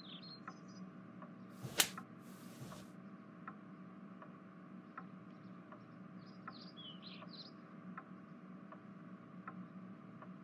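Faint ambience of birds chirping in short bursts over a steady tick about every three-quarters of a second and a low hum. A single sharp click comes about two seconds in, followed by a brief hiss.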